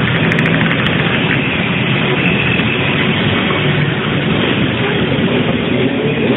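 Steady, loud engine noise from motorcycles running.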